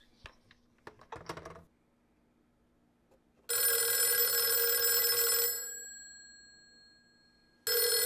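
Western Electric 302 desk phone's mechanical twin-gong bell ringing for an incoming call: one ring of about two seconds that fades away, then a second ring starting near the end. A few light knocks in the first second and a half as the handset is set back in its cradle.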